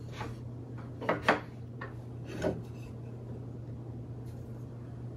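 Wooden Layens beehive frame parts being fitted together and handled on a table: a few short wooden knocks, two close together about a second in and another about two and a half seconds in.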